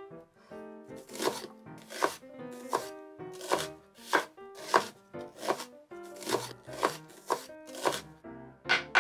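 Chef's knife cutting through an onion onto a bamboo cutting board: roughly a dozen crisp chops, a little more than one a second, each ending in a knock on the wood.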